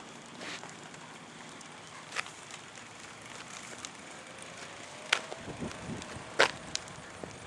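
Delta recumbent trike pushing off and rolling across pavement: a steady hiss with a few sharp clicks and knocks from the trike, the loudest two about five and six and a half seconds in.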